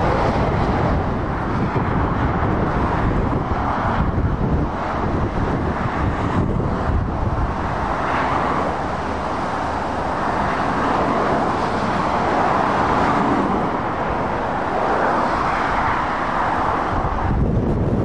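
Road traffic: lorries and cars driving past, their engine and tyre noise swelling and fading as each goes by, over a constant low rumble of wind on the microphone.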